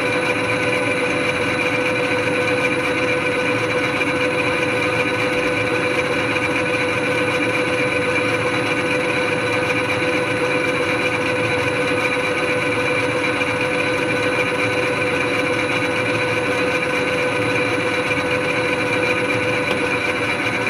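Metal lathe running steadily with a constant whine while a carbide tool on power feed turns down a hexagonal steel bar. The hex corners make it an interrupted cut.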